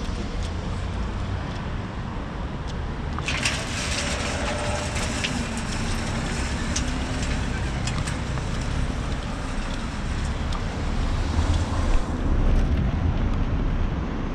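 Outdoor street noise: a steady low rumble of wind on the microphone and traffic, with a crackling hiss from about three seconds in until about twelve seconds.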